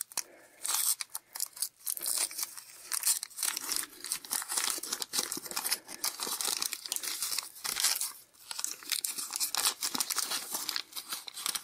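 The waxed-paper wrapper of a 1982 Donruss baseball card pack crinkling and tearing as it is peeled open by hand, an irregular run of crackles with a short pause a little past eight seconds.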